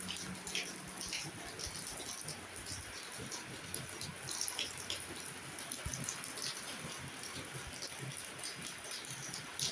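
Heavy rain falling: a steady hiss of rain with scattered sharp drops tapping on a hard surface.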